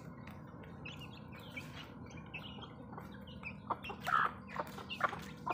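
Flock of backyard chickens feeding: scattered short peeps and soft clucks from hens and chicks, with a louder call about four seconds in.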